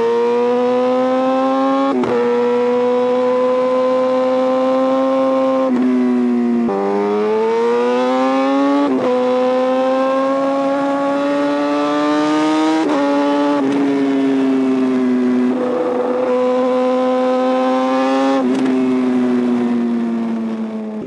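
Kawasaki Ninja ZX-10R's inline-four engine running hard through a Racefit titanium exhaust. Its note climbs, then breaks off sharply several times as it shifts gears, and it eases off near the end.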